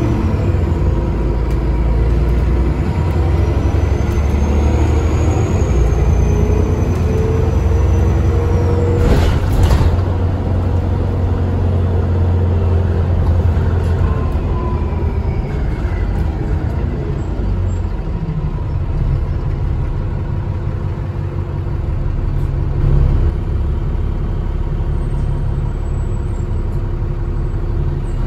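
Alexander ALX400 double-decker bus heard from inside while under way: the diesel engine runs with a steady low drone, and a faint high turbo whistle rises and falls in the first few seconds. About nine seconds in comes a short hiss of released air from the air system, and the engine note eases off around eighteen seconds.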